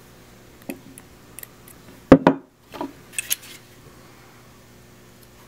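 Field-stripped Glock pistol parts handled on a wooden tabletop: a few light clicks, then a sharp knock about two seconds in as a part is put down, followed by a brief clatter of hard parts.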